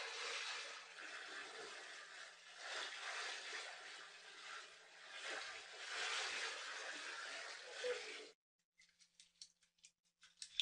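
Shower water spraying and splattering, which stops abruptly about eight seconds in. A few faint clicks and taps follow.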